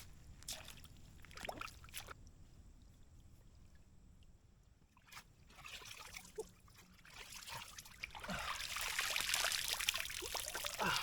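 A few footsteps, then from about eight seconds in a swelling splash and pour of water as a person bathes in a creek.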